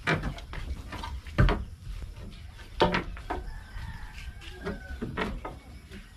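Irregular knocks and clatter of wooden formwork boards being handled, about half a dozen sharp hits with the heaviest about a second and a half in.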